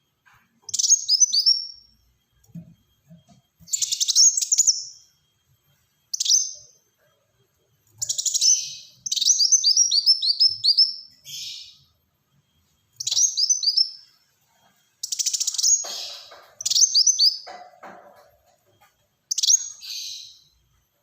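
Kolibri wulung sunbird singing in rapid bursts: short runs of high, quickly falling notes, repeated every second or two.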